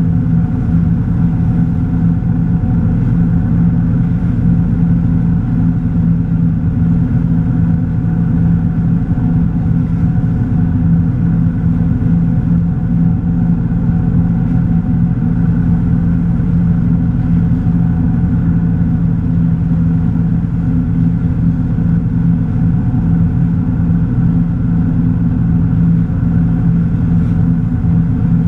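Tige 22ve wake boat's inboard engine running at a steady low drone, its pitch unchanging, as the boat is held at wakesurf speed of about 12 mph by speed control.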